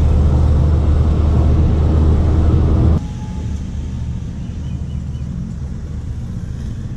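Car cabin noise while driving: a steady, loud low rumble of engine and road noise. About three seconds in it cuts off abruptly and gives way to quieter, lighter traffic and engine noise.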